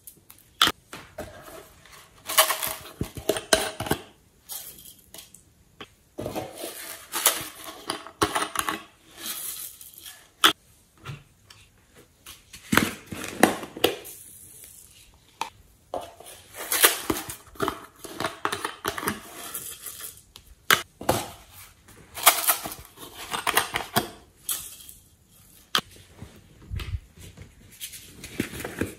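Small foam beads shaken and poured out of plastic jars into a glass tray: irregular bursts of rattling and pattering, with sharp clicks and taps of the plastic containers being handled between pours.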